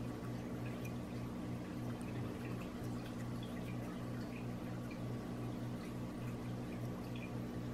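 Faint small clicks of a quartz pocket watch's crown being turned to set the hands, over a steady low hum.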